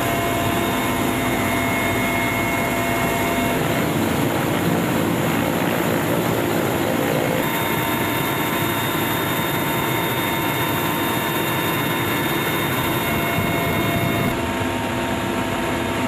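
Steady, loud aircraft engine noise with constant droning tones, changing abruptly a few times.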